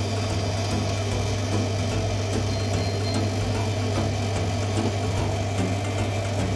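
Steady low mechanical hum with a constant hiss over it, unchanging throughout.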